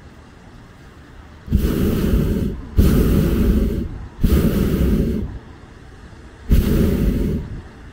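Hot-air balloon's propane burner firing four times. Each blast lasts about a second and starts and stops abruptly.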